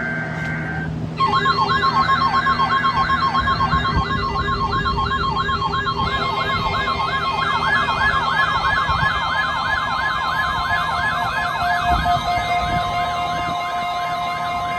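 Weather radio alarm going off for a weekly test: a brief electronic data screech, then about a second in a loud steady alert tone near 1,000 Hz with a fast warbling siren over it, going up and down a few times a second. A second, lower steady tone joins near the end.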